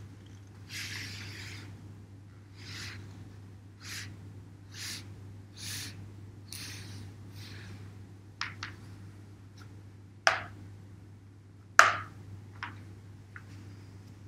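A large calligraphy brush swishing through ink across paper in soft strokes about a second apart, followed by a few short taps and two louder knocks in the second half.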